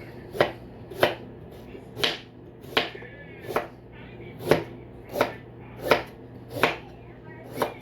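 Kitchen knife slicing food thinly on a cutting board: about ten sharp, regular knocks of the blade hitting the board, a little under a second apart.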